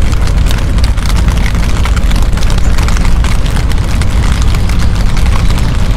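Wind buffeting the microphone with a heavy low rumble, mixed with rain pattering in many small sharp ticks.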